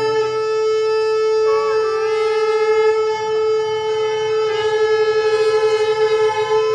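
Shofar blown in one long held blast, with a brief bend in pitch about a second and a half in.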